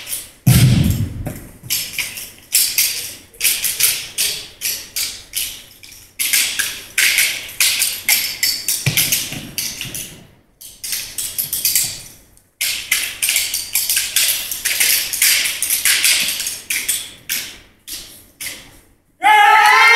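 Exhibition drill team performing: rapid runs of sharp slaps, claps and stomps in tight rhythm, with brief pauses and a few heavier thuds. A crowd breaks into cheering near the end.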